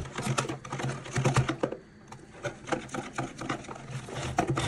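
Wire whisk beating flour into pancake batter in a plastic bowl: a rapid, even clicking and scraping of the wires against the bowl, easing off briefly about two seconds in before picking up again.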